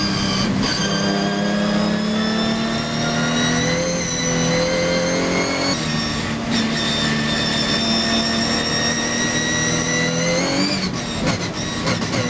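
Onboard sound of a Ginetta G55 GT4 race car's V6 engine pulling hard at speed. The note holds fairly steady with small rises in pitch, and breaks briefly about half a second, six seconds and eleven seconds in.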